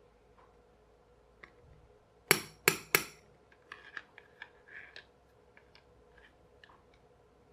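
Three sharp taps in quick succession, then a scatter of lighter clicks and clinks: tools knocked and handled at a soldering bench while desoldering.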